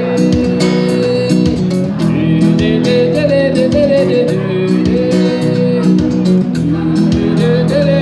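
Brazilian popular music played by a band: guitar over a steady beat, with a held melody line and no words heard.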